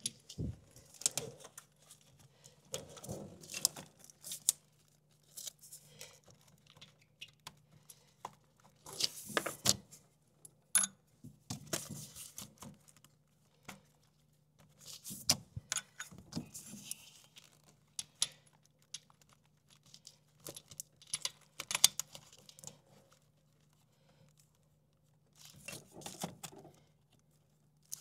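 Intermittent metallic clinks and rattles of hand tools and sockets, with short runs of rapid clicking, as starter mounting bolts are threaded in and tightened.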